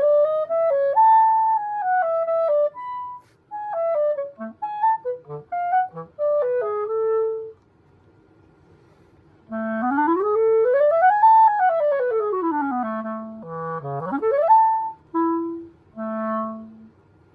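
A Pereira Custom Balance Series clarinet, synthetic 3D-printed plastic, playing solo. It plays a phrase of quick notes, stops for about two seconds, then runs a fast scale up about two octaves and back down. It ends with a few short notes, including one low note that swoops up.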